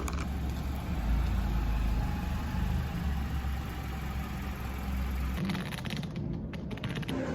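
Steady low rumble of a running vehicle, which changes character about five and a half seconds in.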